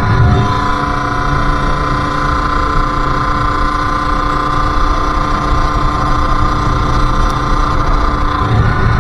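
Sherco SM-R 50's 50cc two-stroke single running at a steady, even pitch while riding, over a low rumble; the pitch rises a little near the end.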